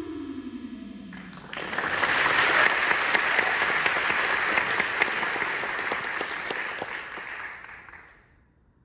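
Audience applauding, starting abruptly about a second and a half in and fading out near the end. Before it, music ends with a falling glide.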